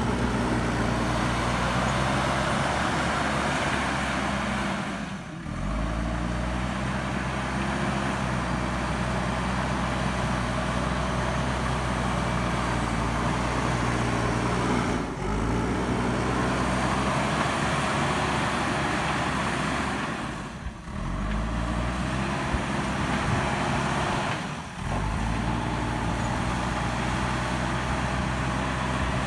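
JCB backhoe loader's diesel engine running steadily under load while pushing gravel, its engine speed briefly dropping and picking back up four times.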